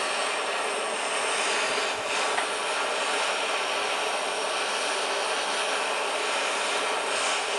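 Hose-fed gas torch burning with a steady hiss, its flame heating the small end of a Ford 300 inline-six connecting rod to expand the eye for a press-fit piston pin.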